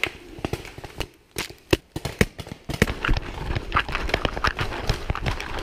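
Running footsteps crunching over pine needles and dry leaves: an irregular patter of thuds and sharp clicks, with rustling between them in the second half.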